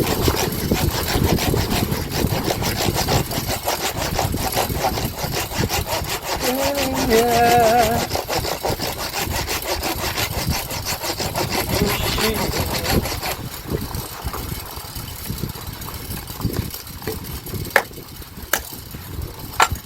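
A saw cutting through pallet wood in quick, repeated strokes. The sawing eases off about two-thirds of the way through, and a few sharp knocks follow near the end.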